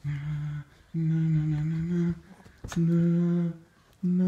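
A man humming long, low, steady notes, four of them with short breaks between, the pitch stepping slightly from note to note. A sharp click falls between the second and third notes.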